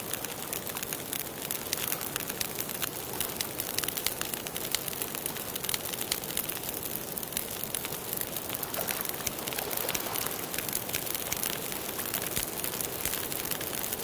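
Log campfire crackling steadily, with many small sharp pops over a soft hiss.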